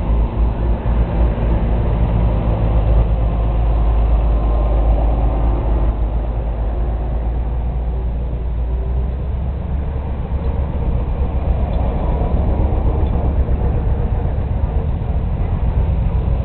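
Farm tractor engines running steadily, a low continuous rumble.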